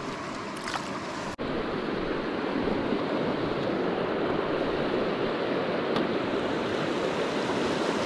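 Fast mountain river running over rocks: a steady rush of water that breaks off for an instant about a second and a half in and comes back louder.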